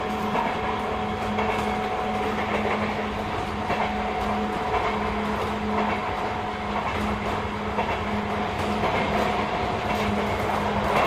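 Sotetsu 8000-series electric train (set 8701F) running at a steady speed, heard from inside the car: a continuous rumble with a steady motor tone and wheels clicking over rail joints now and then.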